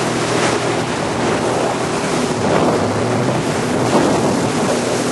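Yamaha WaveRunner jet ski running across the lake: a steady engine hum under the rush of water spray and hull splash, with wind buffeting the microphone.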